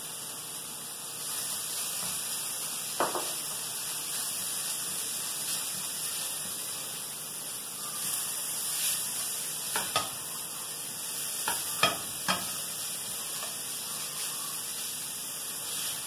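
Diced calabresa sausage sizzling in a frying pan with sautéed tomato, onion and garlic, stirred with a silicone spatula. A few sharp knocks of the spatula against the pan come about three seconds in and again in a cluster around the middle.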